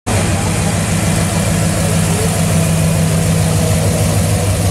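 Square-body Chevrolet pickup's engine idling steadily as the truck rolls slowly past, starting abruptly at a cut.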